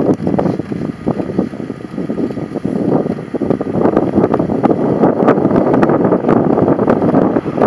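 Wind buffeting the microphone over the rumble of a vehicle driving on a rutted dirt road, with many short knocks from the jolting ride; it grows louder about four seconds in.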